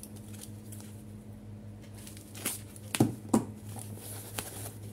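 Foam packing sheet being unwrapped and pulled apart by hand, crinkling and rustling, with a few sharp clicks around the middle, over a low steady hum.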